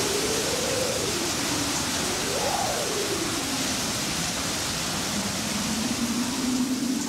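Storm sound effect: a steady rush of heavy rain and floodwater, with a single tone slowly rising and falling beneath it.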